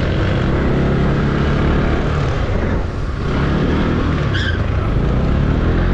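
Motorcycle engine running under way, its note dipping briefly about halfway through before picking up again, over steady road and wind noise. A short high-pitched tone sounds briefly past the middle.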